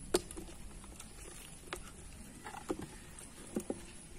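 A few light, separate taps and knocks, the sharpest right at the start, from handling a small hook-caught fish and a plastic bucket as the fish is taken off the line and put into the bucket.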